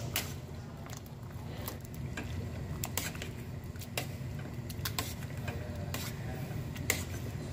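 Metal potato masher pressing soft cooked vegetables in a stainless steel pot, with irregular clicks and knocks of metal against the pot, over a low steady hum.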